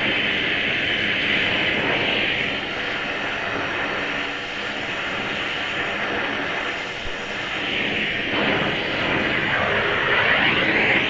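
Oxy-acetylene torch burning with a steady roaring hiss while heating a steel part to make its thread-locker let go; the tone of the hiss dips and rises again near the end.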